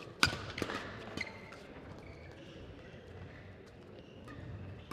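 Badminton rally: sharp racket strikes on the shuttlecock and players' footwork on the court, with several quick hits in the first second and a half, the loudest about a quarter second in, then fainter taps.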